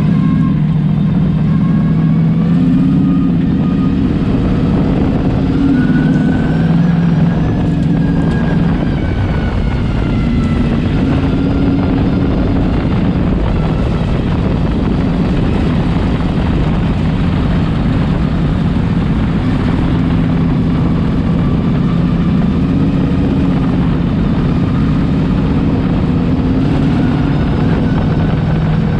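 Dirt-track sportsman modified race car's V8 engine running hard at racing speed, recorded from inside the cockpit. The engine note rises and falls every few seconds as the car laps, with wind and tyre noise underneath.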